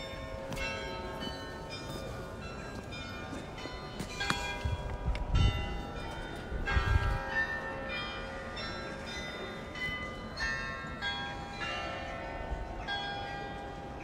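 Bells ringing out: many strikes at different pitches, a few a second, overlapping and ringing on. Two low thumps come about five and seven seconds in.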